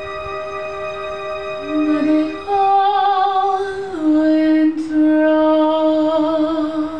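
A woman singing a slow ballad over a sustained accompaniment, in long held notes with vibrato. The melody steps up about two and a half seconds in and back down about four seconds in, and the phrase ends near the end.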